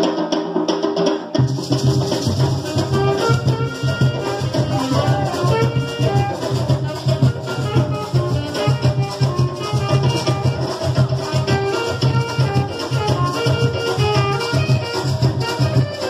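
Carimbó band playing live: curimbó log drums played by men sitting astride them, maracas, and a saxophone melody. The drums come in about a second and a half in and keep a steady beat.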